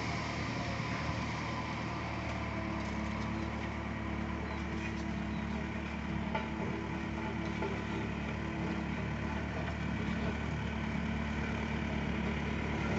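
Road roller's engine running steadily, an even low drone with no change in speed.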